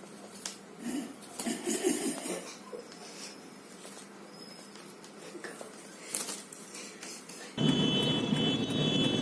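Faint scattered clicks and rustling. About seven and a half seconds in, the sound switches suddenly to the steady noise of a car on the move, with a thin high ringing tone over it.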